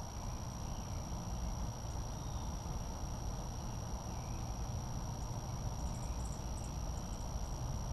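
Steady low outdoor background rumble with a constant thin high whine over it. A few faint, short, high chirps come through a little past halfway.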